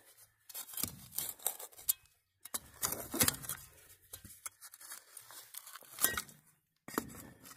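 Shovel blade digging and scraping in dirt and gravel beside the pipe, in a run of irregular scrapes and crunches with short pauses between strokes.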